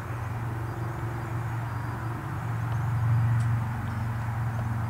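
A steady low mechanical drone, like a distant engine, growing a little louder about three seconds in.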